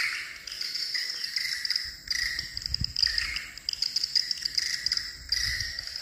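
Swiftlet lure call played through tweeter speakers at a swiftlet house's bird entry hole: a steady, high-pitched, rapidly fluttering electronic chirping. A low rumbling runs underneath from about two seconds in.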